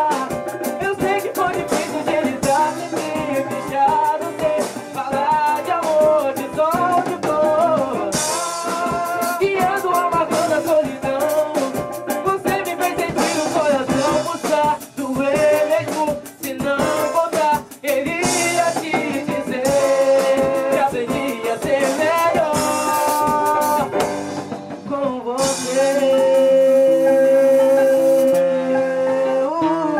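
Pagode band performing: a man sings a love song into a handheld microphone over cavaquinho, acoustic guitar, banjo and pandeiro, holding one long note in the last few seconds.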